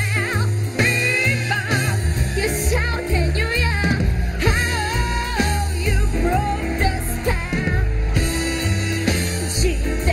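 A young girl singing a pop song over an upbeat backing track with a steady bass line.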